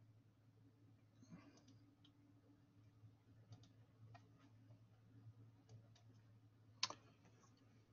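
Near silence: a faint steady hum with scattered faint clicks from a computer being worked, and one sharper click near the end.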